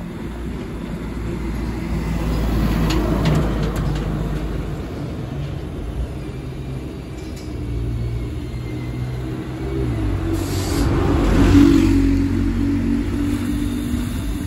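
Iveco Daily police van's diesel engine running as the van pulls slowly forward, getting louder as it comes closer, loudest about twelve seconds in.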